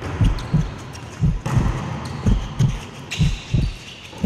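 Heartbeat sound effect: low double beats, lub-dub, about once a second, with a faint hiss and light clicks above.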